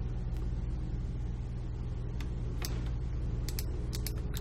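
Steady low hum of background noise, with a few scattered computer mouse and keyboard clicks.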